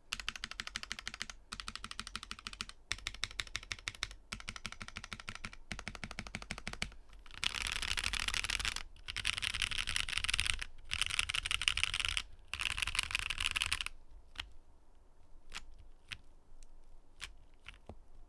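Mechanical keyboard typing test on an IV Works AV3 with Momoka Frog switches: fast runs of keystrokes in bursts with short pauses, a louder, denser stretch in the middle, then slow single keypresses near the end.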